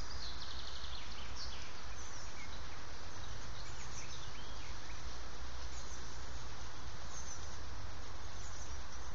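Outdoor ambience: a steady hiss with a few faint, short bird chirps in the first few seconds.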